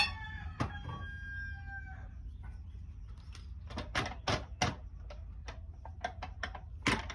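A rooster crowing once, one call of about two seconds, with sharp knocks and taps scattered around it that come thicker and faster in the second half.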